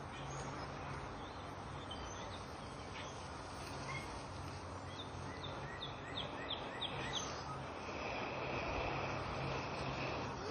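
Breath blown steadily into a dry-grass tinder bundle to coax a char cloth ember into flame, a soft rushing noise that grows louder in the second half. A bird gives a quick run of about six chirps midway, over a low steady hum.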